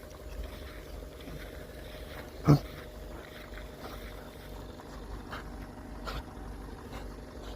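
Dogs swimming in floodwater: faint, steady splashing and lapping of water with a low rumble of wind on the microphone, and a single short, sharp sound about two and a half seconds in.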